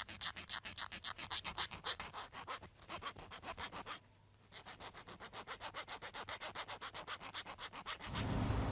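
Rapid rhythmic rubbing strokes by hand, about six a second, like abrasive work on a small workpiece, with a short pause about four seconds in.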